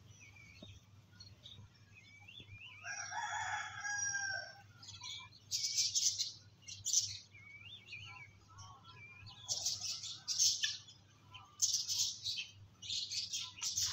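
A rooster crows once, about three seconds in, a call of about a second and a half, with faint small bird chirps around it. From about five and a half seconds on, repeated short bursts of high, scratchy chirping come in and are louder than the crow.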